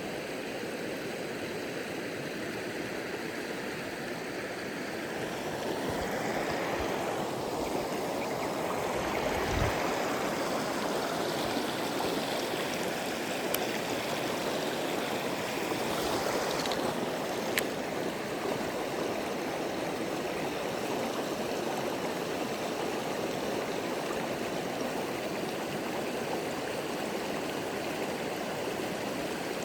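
Mountain stream running steadily with a full, even rush of water, its flow slightly swollen. A single low thump comes about ten seconds in, and a few faint clicks follow a little later.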